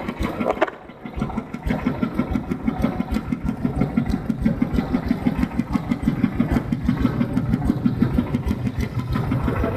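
Engine of a mobile rice-milling machine running with a rapid, even pulsing beat. It dips briefly about a second in, then runs on steadily.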